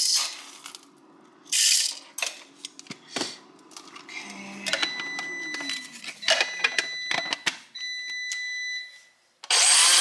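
Electric coffee grinder being loaded with espresso beans: plastic clicks and rattles as the bean hopper and its lid are handled, with a steady high tone for a few seconds. About half a second before the end the grinder starts and grinds loudly and steadily.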